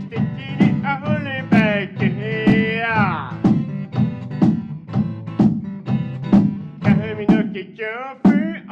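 A man singing a melody, with a long wavering held note about three seconds in, over a steady beat of hand-struck box percussion and guitar.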